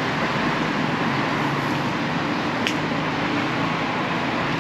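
Steady road traffic noise: cars driving past on a city street, with a faint engine hum and a single light click near the middle.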